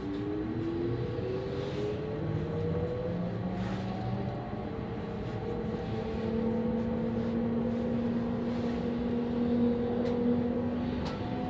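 Electric S-Bahn commuter train pulling away, heard from inside the carriage: the traction motors whine in several tones that rise in pitch over the first few seconds, then hold steady over the rumble of the running gear.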